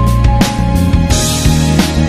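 Background music with a beat.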